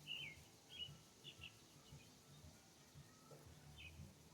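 Faint bird chirps: a handful of short calls, each falling in pitch, scattered through a near-quiet backdrop.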